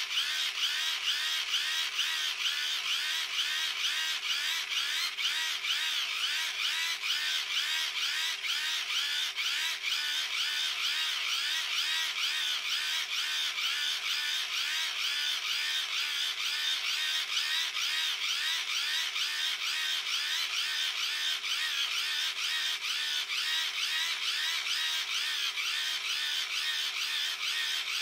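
Hand-cranked dynamo of a wind-up emergency radio-torch whirring as the crank is turned at a steady pace, about three turns a second, while it charges a phone. Its whine rises and falls with each turn.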